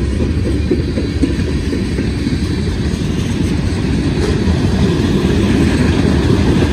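Freight train rolling past, a steady low rumble that grows a little stronger in the second half.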